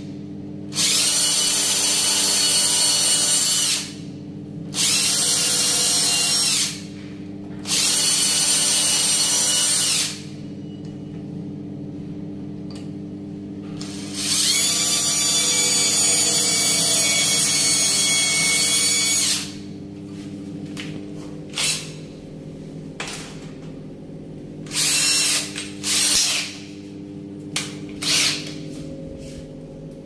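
Bosch cordless drill boring into a wooden door at the door knob's screw hole: four runs of a few seconds each with pauses between, then a few short bursts near the end. A steady low hum sits underneath.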